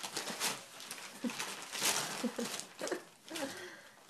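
Welsh corgi ripping and tugging at gift wrapping paper, an irregular run of rustles and tears, with a few brief voice-like sounds mixed in.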